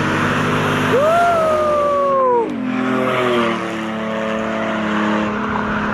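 A car's engine running hard, with a tire squeal that rises sharply about a second in and slides down in pitch for about a second and a half before the engine note drops.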